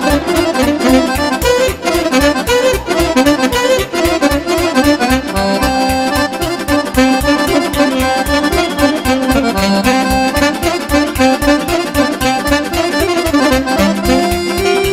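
Instrumental passage of Romanian party folk music, with accordion playing the lead melody over a quick, steady bass beat.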